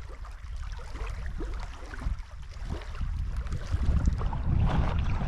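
Wind buffeting the microphone in a low rumble, with scattered small clicks; the gusts get stronger about four seconds in.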